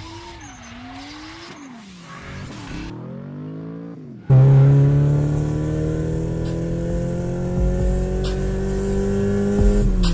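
Car engine sound effect: after a few seconds of quieter falling whines, an engine comes in loudly about four seconds in and revs with a slowly rising pitch, which drops briefly near the end before carrying on.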